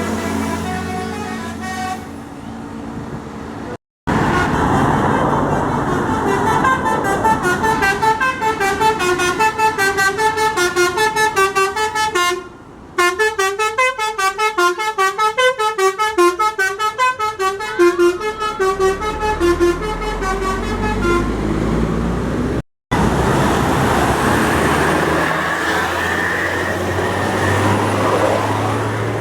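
Tour bus 'telolet' musical horns of the Basuri type playing rapid multi-note tunes, the notes hopping up and down several times a second over engine and traffic noise. The sound breaks off abruptly twice, and near the end only road and engine noise remains.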